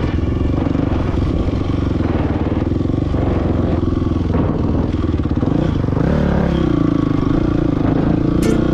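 Dirt bike engine running under the rider on a trail, revs rising and falling with the throttle, then climbing about six seconds in and holding higher.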